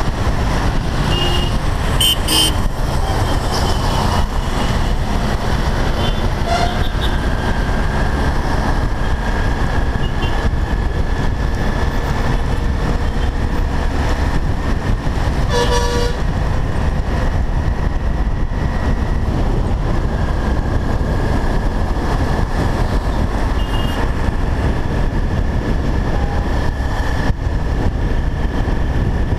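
Steady wind rush and engine noise from a motorcycle riding through traffic, with short vehicle horn toots about two seconds in and again about halfway through.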